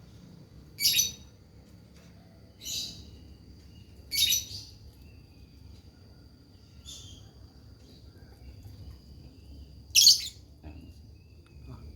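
Lovebird giving short, harsh chirps, five separate bursts with pauses of a second or more between them, the loudest in the first second and about ten seconds in. This is the dry, sharp style of lovebird call that keepers call 'suara kering'.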